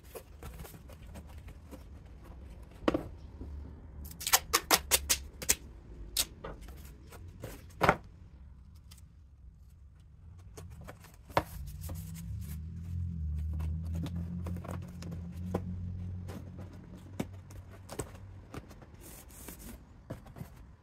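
Stiff cardboard being handled and bent, with a quick run of sharp snaps and taps, then black duct tape drawn off its roll with a low buzzing rasp lasting several seconds and pressed onto the cardboard.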